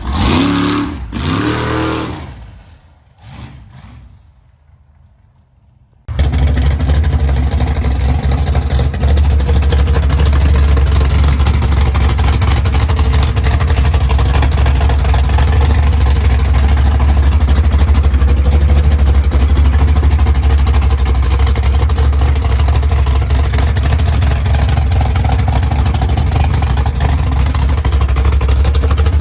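A gasser hot rod's engine revs and falls in pitch as it winds down, fading away over a few seconds. About six seconds in, a loud, deep, steady engine rumble cuts in suddenly and keeps running evenly.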